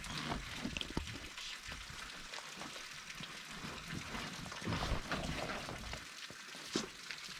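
Heavy rooftop-tent travel cover rustling and scraping as it is pulled off the tent, with a few light clicks and knocks.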